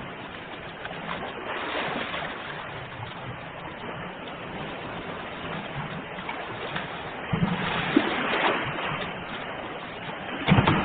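Ocean waves breaking and washing ashore in a continuous hiss. A louder wave breaks about three-quarters of the way through, and another surge builds near the end.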